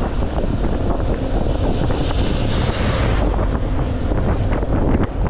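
Wind buffeting the microphone of a rider on a moving motorbike, a dense steady rumble, with a louder hiss for about a second midway.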